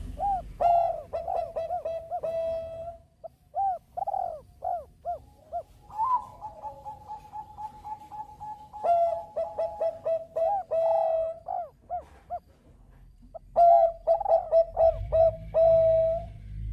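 Zebra dove (Bangkok perkutut) singing: runs of quick, rolling cooing notes in three bouts, with short pauses between them.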